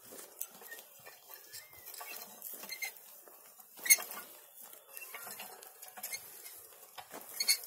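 Hand-pushed nail weeder working dry, cloddy soil: its nails and steel wheels scratch and rattle through the ground with irregular scraping and clicks. A sharp click about four seconds in is the loudest.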